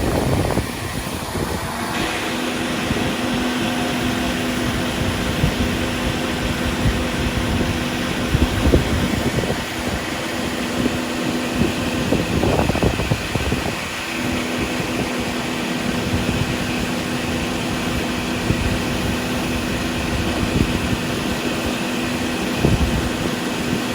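Harvest machinery running steadily with a constant engine hum. The sound steps up about two seconds in, and the hum drops out briefly about halfway through before returning.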